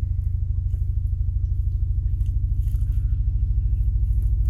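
Steady low rumbling hum with a fast, even flutter, and a few faint light ticks over it.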